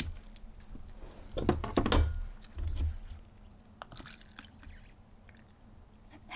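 Knocks and handling noise as tools and a bottle are moved on a tabletop, then isopropyl alcohol trickling faintly from a large plastic bottle into a small plastic cup.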